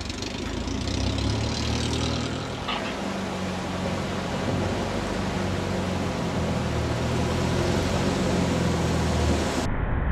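Light bush plane's piston engine and propeller running at taxi power, a steady low drone that grows gradually louder as the plane comes closer. The sound changes abruptly near the end.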